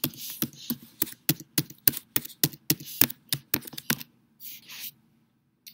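Typing on a keyboard: a quick run of sharp key clicks, about four a second, that stops about four seconds in. A couple of soft hissy sounds and one last click follow near the end.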